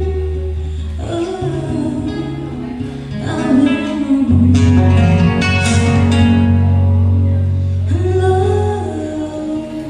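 Song with singing over acoustic guitar and a steady bass line.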